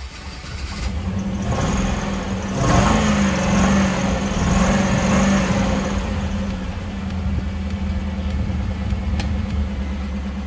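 Pontiac Trans Am doing a burnout: the engine is held at high revs while a loud rush of spinning-tyre noise builds about a second and a half in, peaks near three seconds and eases off after about six seconds as the engine keeps running steadily.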